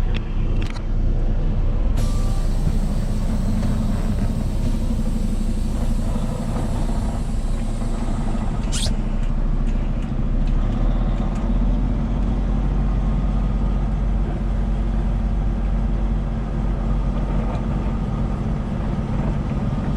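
Diesel engine and road drone of a 2022 Peterbilt 389 semi truck, heard from inside the cab, steady and low. A short high hiss comes about nine seconds in.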